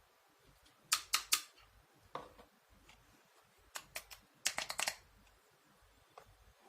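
Small plastic toy kitchenware pieces clicking and tapping together as they are handled: three sharp clicks about a second in, a softer knock, then a quick run of clicks near the middle.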